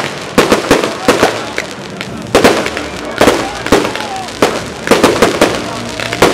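Aerial fireworks shells bursting in quick succession: sharp bangs several times a second, with crackling between them.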